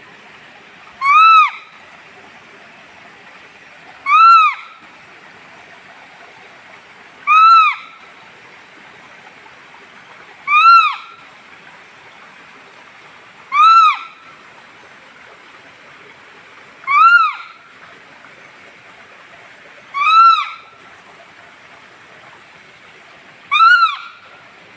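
An animal call: a single short note that rises then falls in pitch, repeated evenly about every three seconds, eight times, over a steady background hiss.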